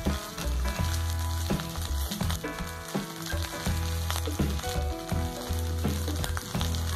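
Fried rice sizzling steadily in a wok, with background music with a stepping bass line playing over it.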